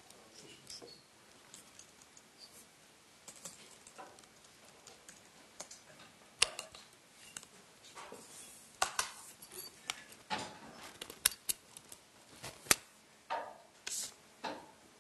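Scattered sharp clicks and knocks with some rustling, from equipment being handled at a speaker's table while the next presenter sets up; the sharpest clicks come in the second half.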